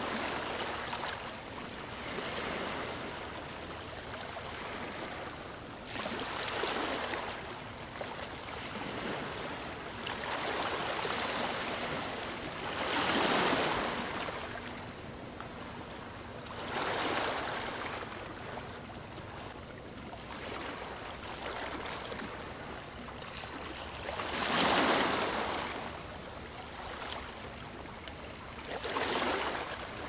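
Ocean surf breaking and washing up the shore. Each wave is a swelling hiss that comes every few seconds, and the two largest come about thirteen and twenty-five seconds in.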